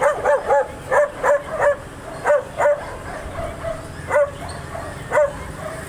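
A dog barking loudly in short, sharp barks: three quick runs of two or three barks in the first three seconds, then single barks about four and five seconds in.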